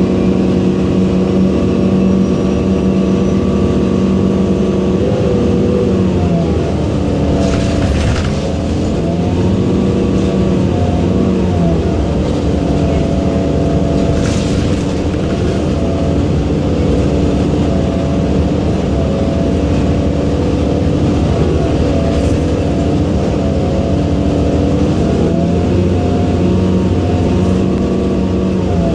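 Interior sound of an Orion VII NG hybrid bus under way: the Cummins ISB diesel engine and BAE HybriDrive electric drive running, a steady drone with several pitched tones that rise and fall as the bus speeds up and slows. Two short hisses come about 8 and 14 seconds in.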